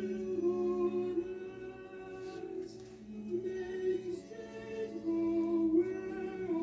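Background music: a slow melody of long held notes that change pitch about once a second.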